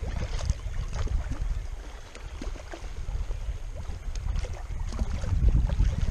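Wind buffeting the camera's microphone: an uneven low rumble that swells and dips, with faint scattered ticks over it.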